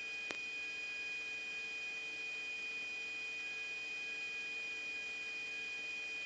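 A steady high-pitched electronic tone with a fainter hum beneath it, over faint hiss: the background of a radio and intercom recording between transmissions. A single faint click comes about a third of a second in.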